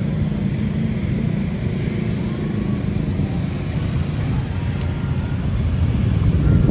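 Low, steady rumble of passing vehicles, growing slightly louder toward the end.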